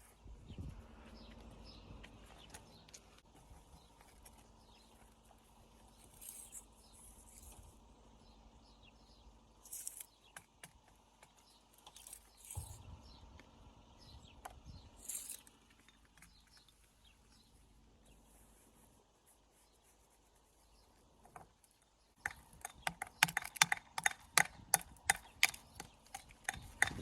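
Faint outdoor background with a few scattered clicks, then, about five seconds before the end, a quick run of sharp knocks, several a second, much louder than what came before.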